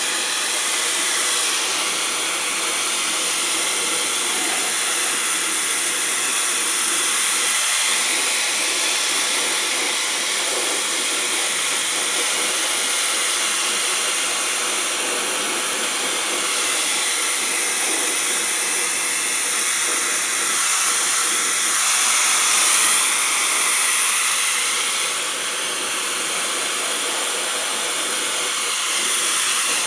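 Blow dryer running steadily, a loud even rush of air, blowing on a wet kitten's fur to dry it after a bath.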